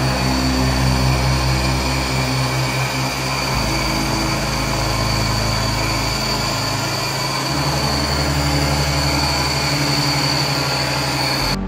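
Milling machine cutting D6 tool steel with a solid carbide end mill: steady, loud cutting noise with a high, even whine. It cuts off abruptly just before the end.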